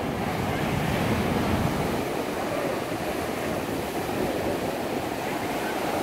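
Small Mediterranean waves breaking at the shoreline and foam washing up the sand: a steady rush of surf, fuller and deeper for the first two seconds.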